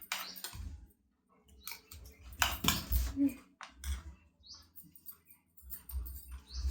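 Eating sounds: irregular small clicks and taps of cutlery against dishes, with low thumps.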